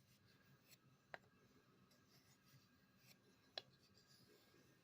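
Near silence with faint strokes of a knife blade on a wooden strop loaded with diamond paste, and two light ticks, about a second in and past three seconds.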